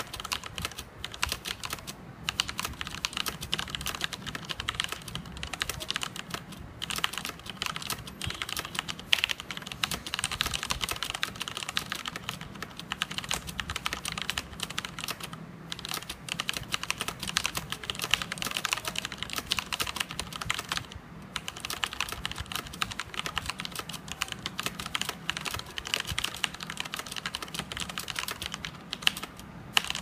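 Fast, continuous typing on a mechanical keyboard with Cherry MX Brown switches: a dense stream of key clacks, broken by a few short pauses.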